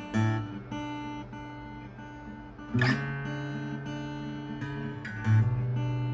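Acoustic guitar music: chords strummed and left to ring over a low bass note, a new chord about every two and a half seconds.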